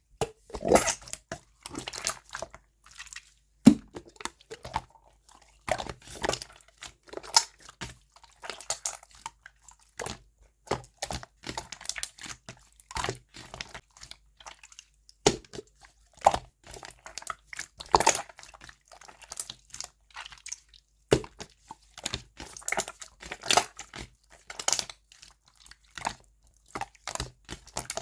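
Clear 'chisel'-type slime being pressed, folded and stretched by hand, giving irregular runs of crackling clicks and squishing pops.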